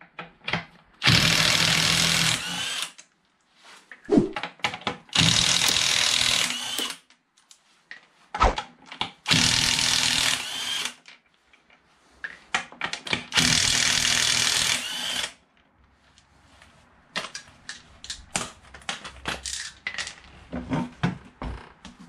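A handheld cordless power tool runs in four bursts of about two seconds each, undoing the nuts on a motorcycle's rear wheel. Near the end come scattered light metallic clinks and knocks as the wheel is worked free.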